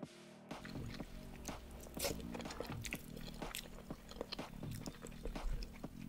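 Close-miked chewing of masala Maggi instant noodles, many small sharp mouth clicks starting about half a second in, over quiet background music.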